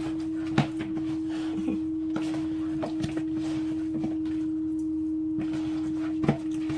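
A steady single-pitched hum runs throughout, with a few soft taps and squelches of hands mixing seasoning into raw chicken wings in a plastic bowl.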